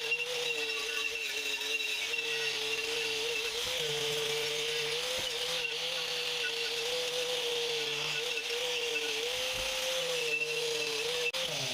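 Electric power tool motor running steadily with a whine that wavers slightly in pitch, over a steady hiss.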